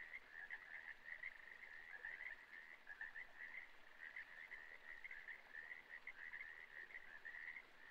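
Faint nature ambience: a steady chorus of short, rapid chirping animal calls, all at about the same mid-high pitch.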